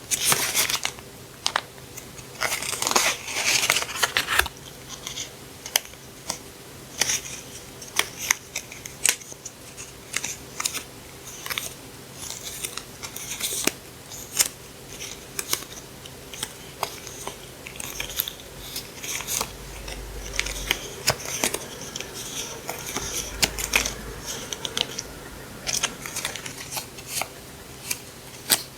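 Paper stationery and packaging being handled close up: repeated rustling and crinkling with many sharp clicks and taps.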